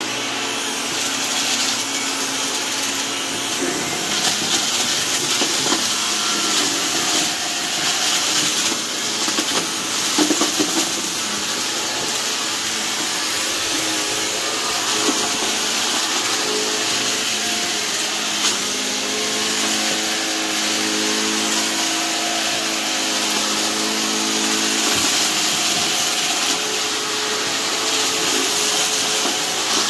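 Shark Lift-Away vacuum cleaner running, with a steady airflow hiss and a motor hum that wavers a little. A few short crackles are heard as it sucks up crunchy debris.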